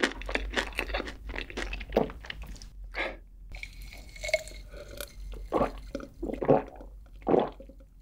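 Close-miked chewing of a mouthful of food, then, after a short break, gulps of a drink swallowed from a glass mug, about one a second.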